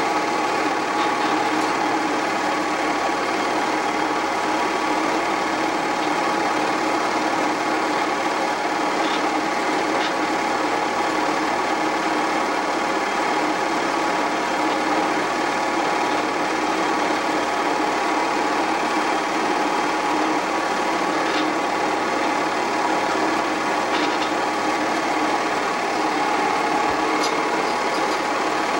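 8mm film projector running: a steady mechanical whir with many fixed tones, unchanging throughout.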